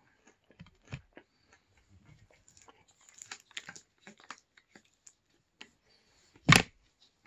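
Close-up eating and handling noises: a few soft chewing sounds, then a plastic water bottle crackling and clicking as it is handled at the cap. About six and a half seconds in comes a single loud thump as the bottle is put down on the table.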